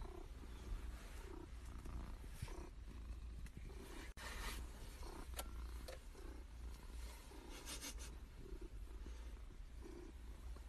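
Domestic cat purring close to the microphone, the purr swelling and fading in a steady rhythm with each breath, with a few brief scratchy rustles as its fur brushes the phone.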